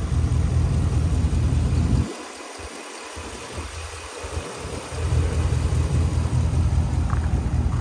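5.7-litre Hemi V8 of a 2013 Ram 1500 idling smoothly, heard with the hood open. The low rumble drops away for a few seconds about two seconds in, then comes back.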